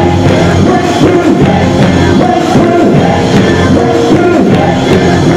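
Live gospel band playing a praise break: drums, guitars and keyboard with singers on microphones, loud and continuous.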